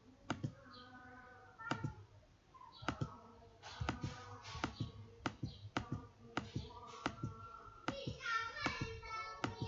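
Computer mouse clicking repeatedly, more than a dozen sharp clicks at an uneven pace, some in quick pairs.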